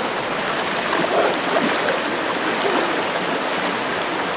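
Shallow river water rushing over rocks and being churned and splashed by hand, a steady wash of water noise.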